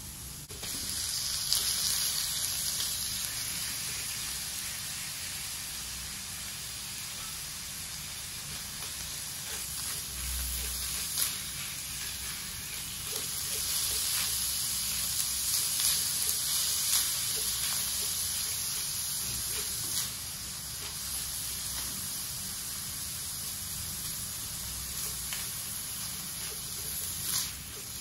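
Minced garlic and ground meat sizzling in a hot stainless wok as they are stir-fried with a silicone spatula. The steady sizzle gets louder about a second in, with a few light taps and scrapes of the spatula.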